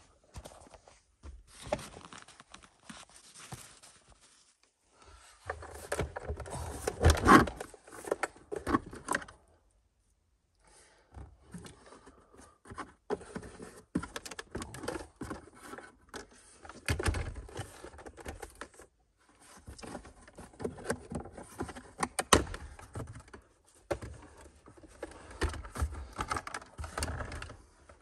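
The center console armrest assembly of an Audi A8L being worked loose and lifted out after its Torx screws are removed: irregular plastic clicks, rattles and scrapes, loudest about seven seconds in.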